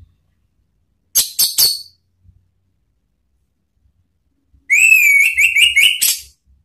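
Orange-headed thrush (anis merah) calling: three short, harsh high notes about a second in, then a rapid run of about eight whistled notes that ends in a harsh rasping note near the end.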